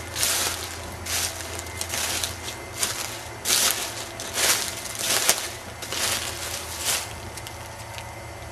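Footsteps in dry leaf litter, an irregular series of steps that stops about seven seconds in, over a steady low hum.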